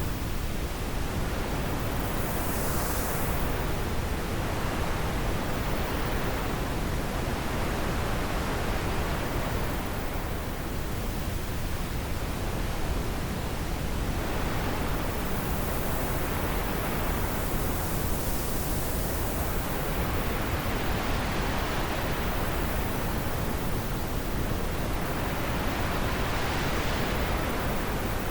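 Wind blowing as a steady rushing noise, with slow gusts swelling and fading every several seconds.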